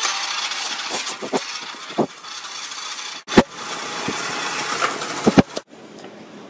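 Battery-powered toy dune buggy's small electric motor and plastic gearing whirring steadily as it drives across a tile floor, with several sharp clicks and knocks, the loudest about three and a half seconds in. The whirring cuts off suddenly about five and a half seconds in, leaving quiet room tone.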